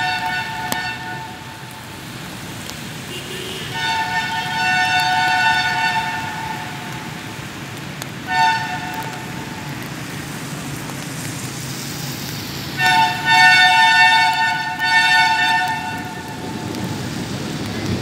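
Vietnamese railway locomotive air horn sounding a two-note chord in separate blasts: a long blast, a short toot, then three blasts in quick succession near the end, with a steady low rumble underneath.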